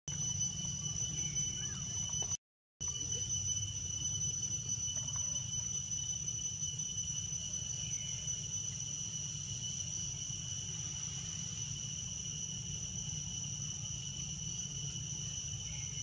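Insects droning steadily at a high, unchanging pitch over a low rumble; the sound cuts out completely for a moment about two and a half seconds in.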